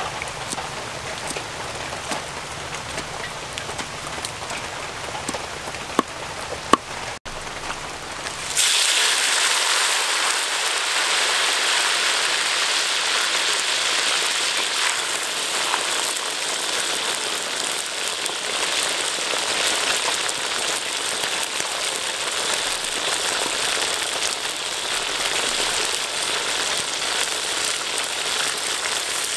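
A few knife knocks on a wooden chopping board, then, from about 9 seconds in, a sudden dense, steady sizzle of giant water bugs deep-frying in hot oil in a wok.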